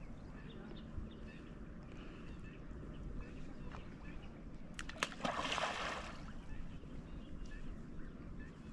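A handful of flour groundbait thrown into lake water lands with a single splash about five seconds in, over a steady low rumble.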